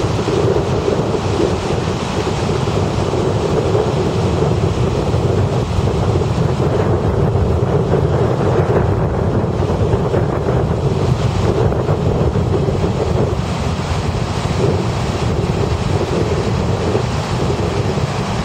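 River water rushing steadily over a rocky whitewater riffle, with wind buffeting the microphone.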